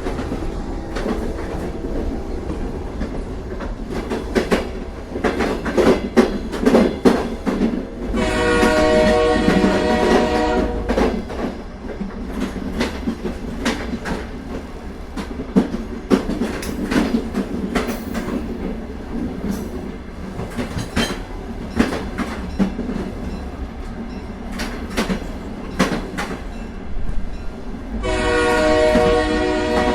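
Train running on the rails, its wheels clacking over the rail joints under a steady rumble. The train horn sounds for about three seconds around a quarter of the way in, and again near the end.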